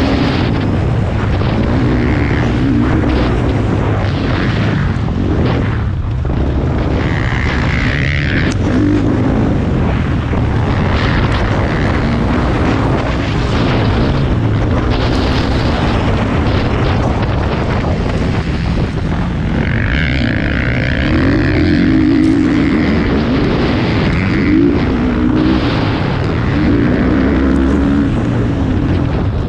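Motocross bike engine racing, heard close from an onboard camera: the pitch rises and falls again and again as the throttle is opened and closed, over steady noise.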